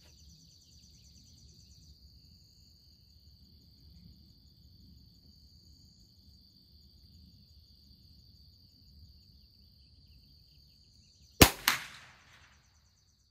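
A single .22 LR rifle shot from a Christensen Arms Ranger bolt-action rifle, a sharp crack near the end, with a second, softer crack a fraction of a second later.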